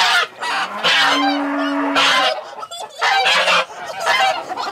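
Domestic goose honking over and over as it is held and carried by hand: a run of loud, harsh honks, with one longer call about a second in.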